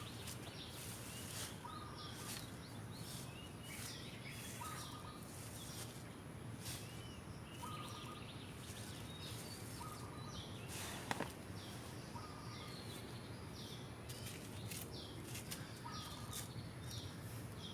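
A bird calls over and over, a short low note followed by high arched notes, about once every second and a half, over a steady low background hum. A single sharp click sounds about two thirds of the way through.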